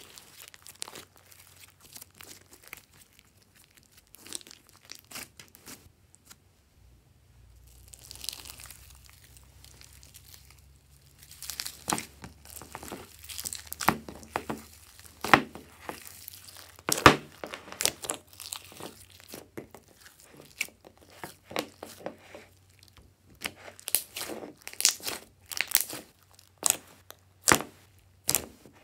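Hands squeezing, stretching and pressing glossy slime, making irregular sticky crackles, clicks and pops. After a short pause about seven seconds in, the crackling grows louder and denser as blue slime with foam beads is worked in a glass dish.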